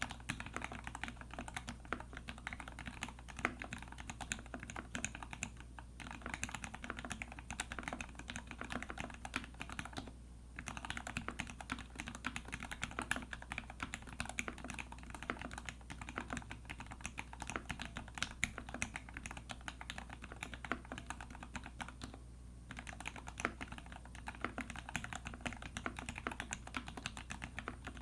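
Typing on a TX Keyboard EO87 tenkeyless mechanical keyboard with lubed Gateron Ink Black linear switches on a brass plate and GMK keycaps: a rapid, continuous stream of keystrokes, with short pauses about six, ten and twenty-two seconds in.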